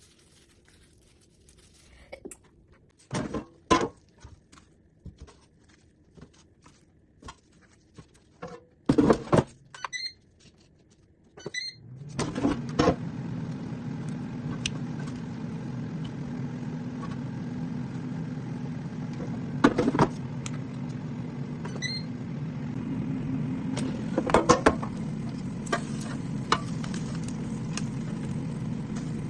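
Scattered knocks and clicks of handling, then a few short beeps. An air fryer's fan starts about twelve seconds in and runs steadily with a low hum, broken by a few more knocks.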